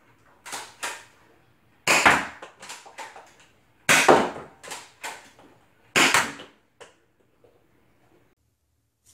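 Spring-powered Nerf Rival Knockout pistol, fitted with a half-dart inline clip conversion kit, fired three times about two seconds apart. Each shot is a sharp snap followed by a few lighter clicks and knocks.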